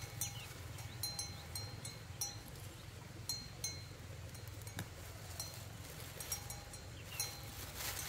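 Leafy greens being picked by hand in grass: rustling with a sharp snap about five seconds in. Short high chirps recur every second or so and are the loudest sounds.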